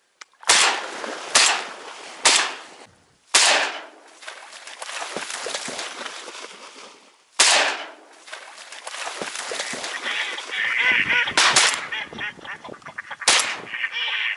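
Shotgun shots fired at flying birds: a quick run of four near the start, then single shots spaced several seconds apart, with two close together near the end, each dying away in a short echo.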